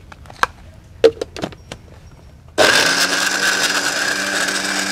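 A few plastic clicks and knocks as the lid is fitted onto a blender jug, then about halfway through the electric blender is switched on and runs steadily, grinding chopped red chilies with sugar and fish sauce.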